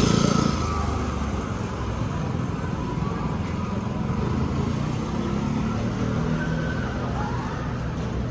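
Road traffic on a city street: a steady low rumble of passing vehicles, loudest in the first half second.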